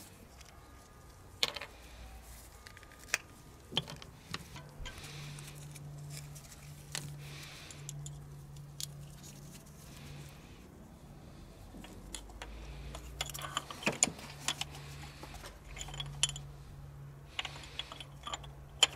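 Small metallic clicks and clinks of a Delphi diesel injector being handled and set into its well in the cylinder head, at irregular moments, with a faint low hum underneath.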